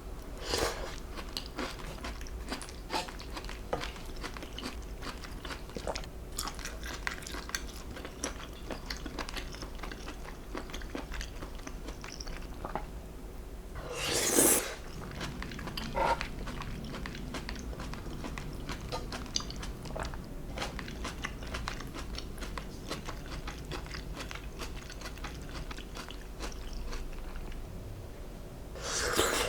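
Close-miked eating: steady chewing with many small wet and crunchy clicks. Three louder bites or slurps come just after the start, about halfway through and at the end.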